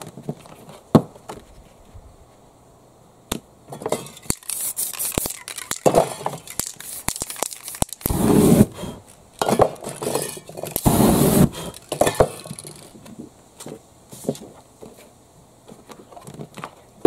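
Aerosol spray paint cans being worked over a paper stencil. There are scattered clicks and clinks, then a busy middle stretch of hissing sprays mixed with rattling and paper rustling as the stencil sheets are handled.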